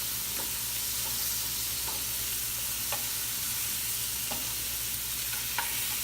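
Blackened-seasoned redfish pieces frying in butter in a hot pan, a steady sizzle with a few faint pops.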